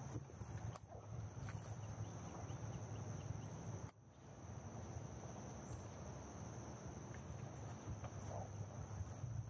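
Woodland ambience: a steady, high-pitched insect drone over a low rumble of wind or handling on the microphone, briefly dropping out about four seconds in.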